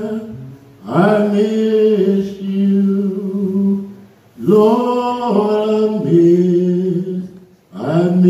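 A single voice singing a slow lament, drawn out in long held notes. There are three phrases, each sustained for about three seconds with small steps in pitch and brief breaths between them.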